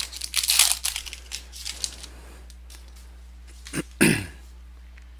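Foil trading-card pack wrapper crinkling as it is torn open and handled, for about the first two seconds. After that there is only a steady low hum, broken about four seconds in by a brief low throat sound that falls in pitch.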